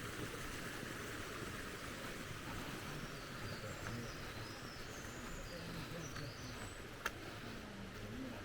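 Steady rush of mountain stream or waterfall water, with a few faint high bird chirps midway and a single sharp click about seven seconds in.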